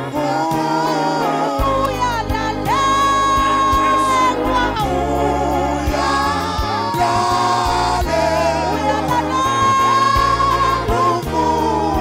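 Live gospel worship singing: a lead singer on a microphone with the congregation singing along, holding long notes over a steady instrumental accompaniment.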